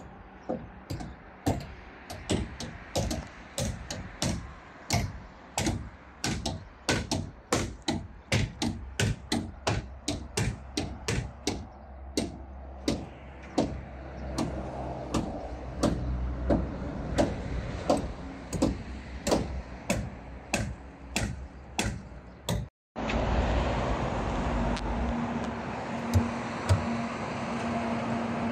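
Hammering: a quick, steady run of sharp hammer blows, about two to three a second. After a brief break near the end, slower single blows follow, about once a second.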